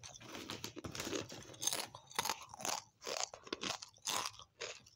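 A person chewing a crunchy snack chip close to the microphone: a run of irregular crisp crunches, about two or three a second.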